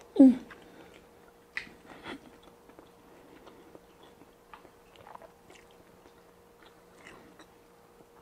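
A person chewing a mouthful of malatang, with soft wet mouth clicks and small ticks scattered through. A short hummed 'mm' comes right at the start.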